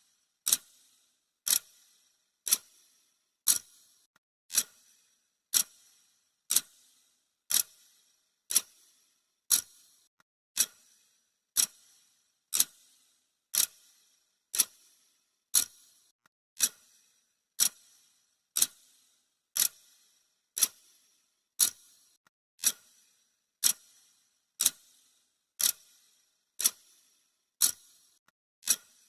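Clock ticking sound effect: one sharp, bright tick a second, perfectly even, marking off each second of the countdown timer.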